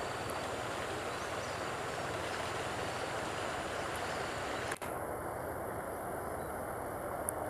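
Steady outdoor background noise, an even hiss with no distinct source, broken by a brief dropout about two-thirds of the way through.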